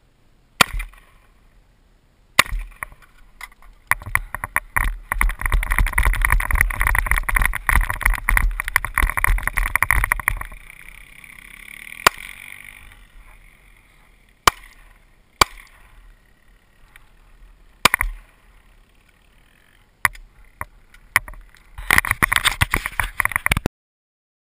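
Handgun shots: a series of single sharp cracks a second to a few seconds apart, with stretches of loud rough noise on the microphone in between. The sound cuts off abruptly near the end.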